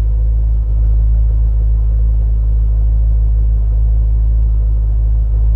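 C5 Corvette Z06's LS6 V8 idling steadily, a loud, even low rumble.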